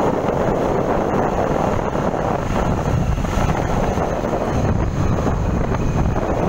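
Wind rushing over the microphone of a moving vehicle, with steady engine and road noise underneath.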